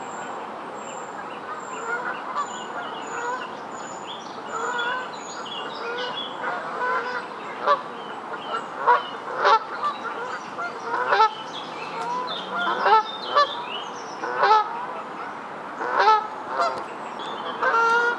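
Geese honking: many short calls overlapping, growing louder and more frequent from about halfway through.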